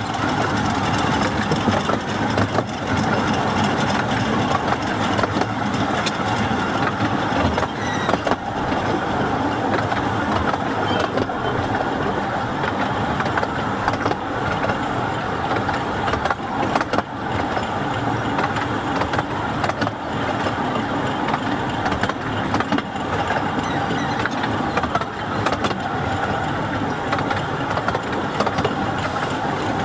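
A 15-inch gauge railway carriage running along the track: a steady rumble and rattle from the wheels and running gear, with frequent small clicks and knocks.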